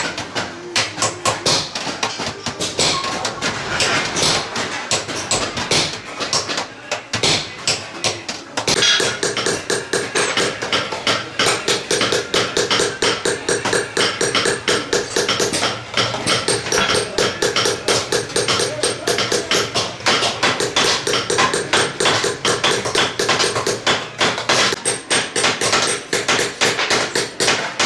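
Hand hammering, fast and rhythmic, several strikes a second and hardly pausing, with a short lull about seven seconds in.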